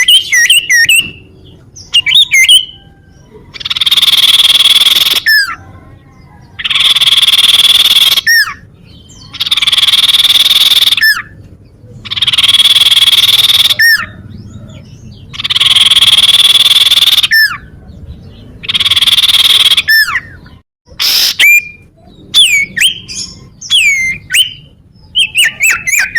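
Common iora (cipow) calling: quick, sharp whistled notes at first, then six harsh rasping calls of about a second and a half each, evenly spaced. More quick whistled notes come near the end.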